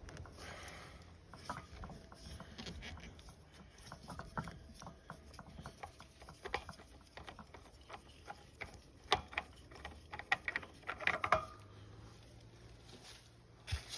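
Irregular light clicks, taps and clinks of hand tools being handled, thickest and loudest a little past the middle.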